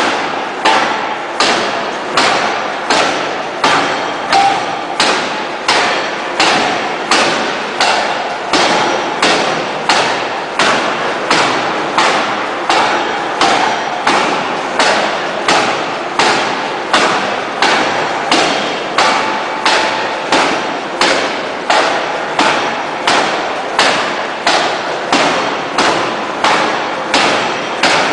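Electro-hydraulic open die forging hammer striking a hot steel shaft in a steady run of heavy blows, about three every two seconds. Each blow is a sharp bang that fades before the next.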